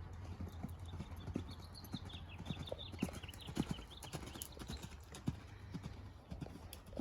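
A ridden horse's hoofbeats: irregular dull thuds, a few each second, over a steady low hum.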